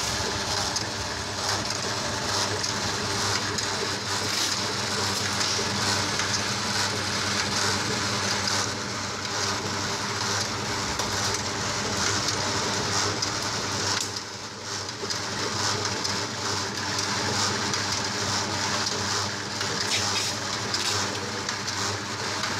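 Round dough divider running: a steady electric-motor hum under a continuous whirring noise from the rotating divider, dipping briefly about two-thirds of the way through.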